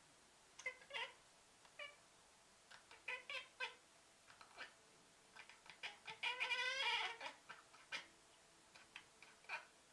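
Domestic cat chattering (cackling): short bursts of clicking, twittering calls, with the longest and loudest run of rapid chatter about six to seven seconds in. This is the chatter cats typically make while fixed on birds or other prey they cannot reach.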